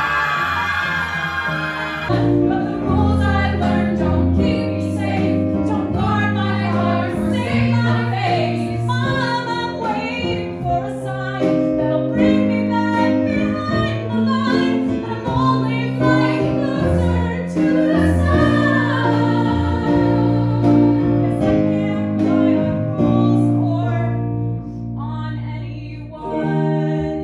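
A woman sings a musical-theatre song into a microphone, accompanied by a Casio electronic keyboard playing sustained chords over a bass line. The keyboard chords come in about two seconds in.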